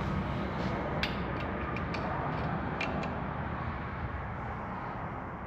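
A few light metallic clicks and taps, spread over about two seconds, as a rod-bolt stretch gauge is fitted onto a connecting-rod bolt. They sit over a steady low hum.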